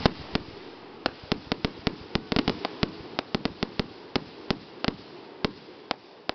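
Aerial fireworks popping and crackling: one loud bang at the start, then a quick, irregular run of sharp cracks, about five a second, thinning out near the end.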